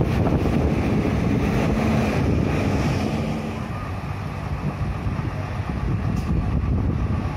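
Large intercity bus's diesel engine running with a steady low rumble as the bus pulls out slowly, with wind buffeting the microphone.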